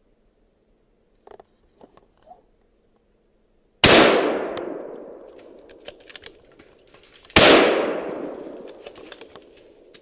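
Two rifle shots about three and a half seconds apart, each with a long echo fading out through the woods.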